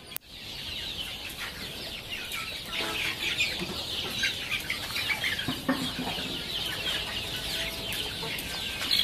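A large flock of desi chickens clucking and calling together, a dense, steady chatter of many short high calls.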